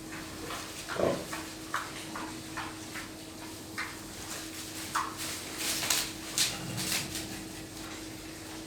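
Pigs in a pen giving short, irregular calls amid knocks, the loudest about a second in and another cluster around six seconds in, over a steady low hum.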